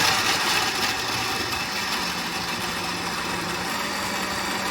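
Geepas 2-in-1 blender's 600 W motor running steadily on its first speed setting, blending boiled spinach and tomato into a purée.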